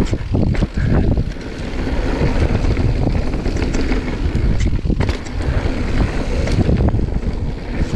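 A Marin Mount Vision 8 mountain bike rolling fast down a dirt singletrack: steady tyre rumble and wind buffeting the microphone, with frequent sharp clicks and knocks from the bike as it rattles over bumps and roots.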